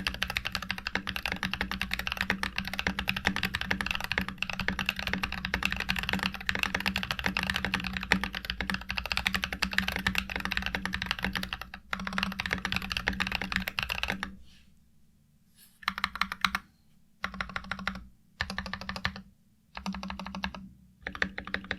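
Typing on a mechanical keyboard: an NK65 Entry polycarbonate board with lubed Glorious Panda tactile switches and MT3 doubleshot ABS keycaps, with a deep thock on each keystroke. Fast continuous typing runs for about fourteen seconds, then breaks into five short bursts of keystrokes separated by brief pauses.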